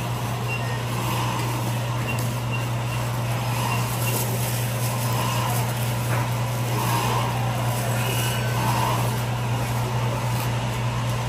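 A steady low mechanical hum under faint background noise.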